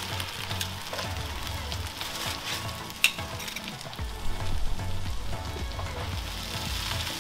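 Diced onions and carrots sizzling as they fry in a hot Weber Q ware pan, stirred and scraped with a spatula, with a sharp click about three seconds in.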